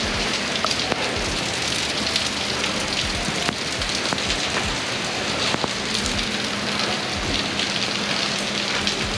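Heavy rain falling steadily, with many separate drops ticking close to the microphone and now and then a low thump, over a faint steady hum.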